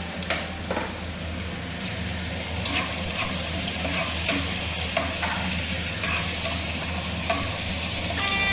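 Spice mix of shallots, chili and garlic sizzling in hot oil in a pan while being stirred, the utensil knocking and scraping the pan at irregular moments.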